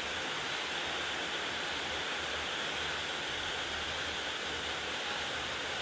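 Steady, unbroken rushing noise of water, heavy rain or flowing floodwater.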